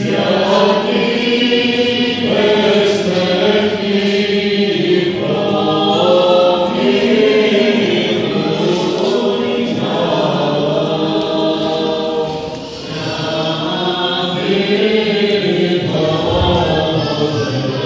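A choir of voices singing in held, chant-like phrases, with a short break between phrases about two-thirds of the way through.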